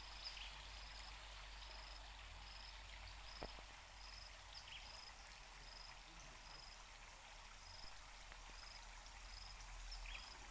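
Faint outdoor background hiss with a thin, high chirp repeating about every two-thirds of a second, and a single click about three and a half seconds in.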